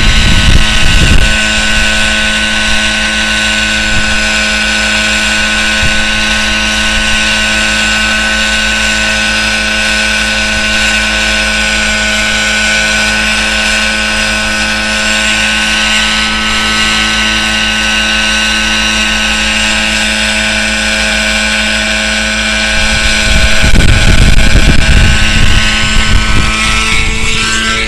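RC helicopter's nitro glow engine and rotors in a hover, a loud, steady engine whine with rotor hum. About 23 seconds in, a louder rushing noise comes in for a few seconds as the helicopter spins out of control, its tail rotor gear stripped. At the very end the engine pitch starts to fall.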